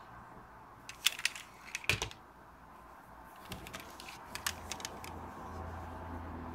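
Small clicks and knocks of diecast toy cars being handled: a quick run of clicks about a second in, a heavier knock just before two seconds, then a few lighter clicks.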